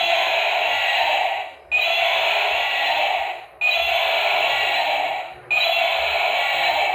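A battery-powered toy's electronic sound effect playing on a loop through its small speaker: a harsh hissing burst of about a second and a half that fades, cuts out and starts again about every two seconds, four times over.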